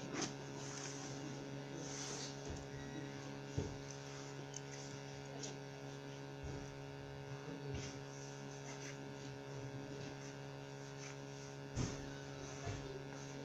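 Steady electrical hum with a few light knocks, one about three and a half seconds in and another near the end.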